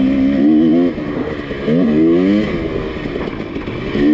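KTM 300 XC-W two-stroke single-cylinder dirt bike engine revving under throttle: held high for about a second, backing off, then revving up again about halfway through before easing off.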